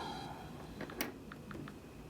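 Faint handling noise of small objects: one sharp click about a second in, with a few small ticks around it.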